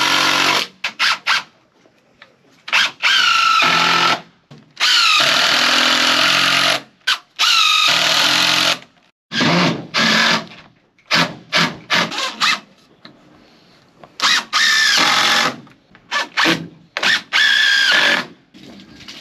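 Cordless drill driving screws into wooden braces on a timber bench frame. About a dozen trigger pulls: long runs of a second or two alternate with short blips, and the motor's whine rises each time it spins up.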